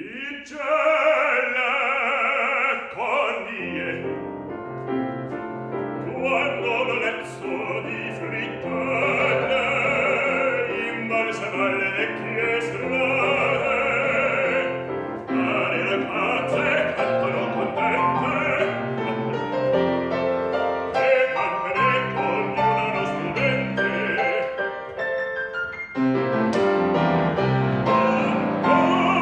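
Operatic baritone singing in Italian with grand piano accompaniment.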